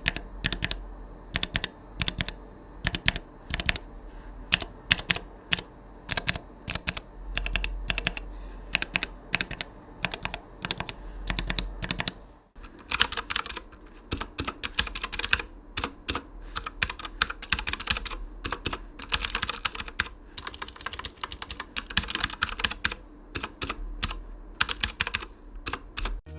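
Gateron mechanical key switches pressed rapidly over and over: a run of sharp clicks and clacks, with a short break about halfway through.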